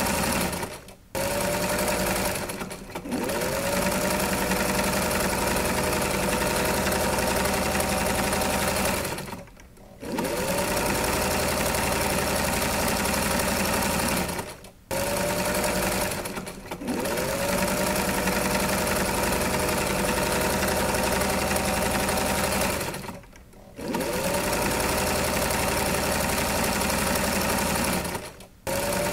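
Electric sewing machine running in long stitching runs, stopping short every few seconds and whirring back up to speed each time it restarts.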